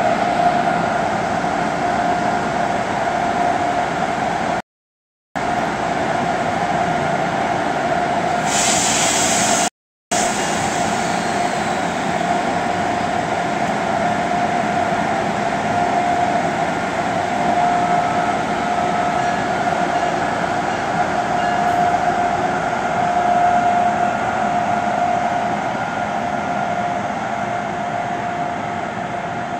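MARC HHP-8 electric locomotive giving off a steady high-pitched whine as it moves slowly past, with a short burst of hissing air about eight and a half seconds in. The sound cuts out completely twice, briefly, around five and ten seconds in.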